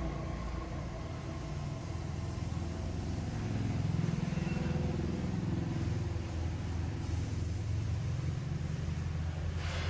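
Car engine running with a steady low rumble that swells slightly about four seconds in. A sharp click comes near the end.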